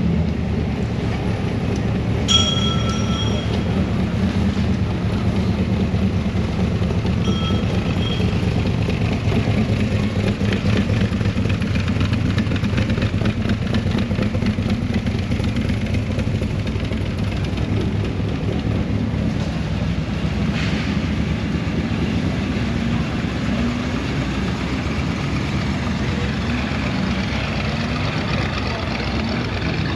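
Engines of American show cars running as the cars drive out, a steady low sound throughout. A short high-pitched tone comes about two seconds in, and a fainter one around seven to eight seconds.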